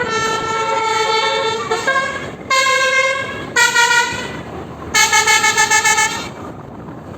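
A tour bus's telolet basuri musical horn playing a tune: a long held note, then a few shorter blasts at different pitches, the last one stuttering rapidly before it cuts off.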